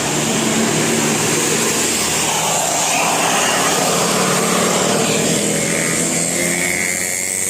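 Diesel bus engine running as a bus drives past, with engine and road noise swelling in the middle.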